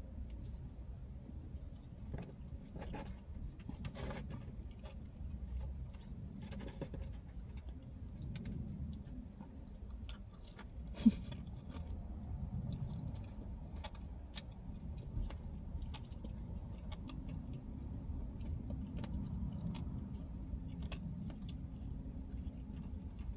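Quiet chewing and small mouth clicks of someone eating pizza, over a steady low hum inside a car, with one sharp click about eleven seconds in.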